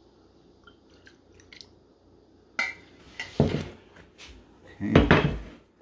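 Faint clinks of kitchen utensils and dishes, then several louder knocks and clatters in the second half, the loudest about five seconds in.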